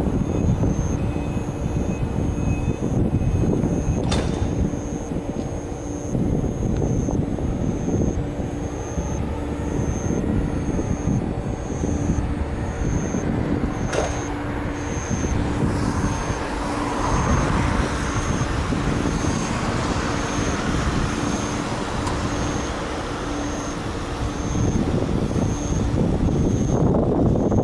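Toyama Chiho Railway streetcar running slowly over the rails with a steady low rumble, and two sharp clicks, about four seconds in and again near the middle. A high beep repeats about twice a second throughout.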